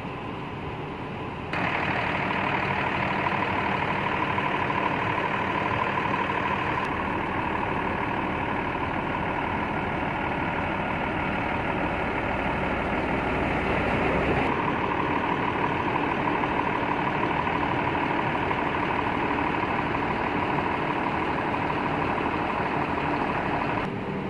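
Mercedes-Benz coach's diesel engine idling steadily, heard close at the rear, with a steady whine over it. It gets louder about a second and a half in and shifts in tone about halfway through.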